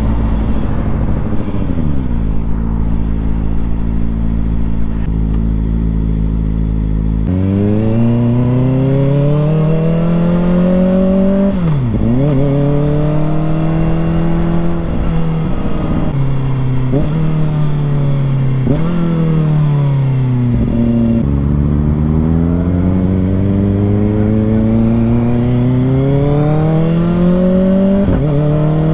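Kawasaki Ninja ZX-4RR's 399 cc inline-four engine under way. It winds down and runs low and steady, then from about a quarter of the way in climbs in pitch with a sharp drop at each gear change, four times in a row. It then eases off and climbs again through the last part, with one more drop at the very end.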